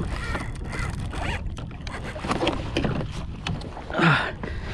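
Wind rumble on the microphone and water noise around a fishing kayak, with a few short strained vocal sounds from the angler as he fights a freshly hooked fish. The loudest of these comes about four seconds in.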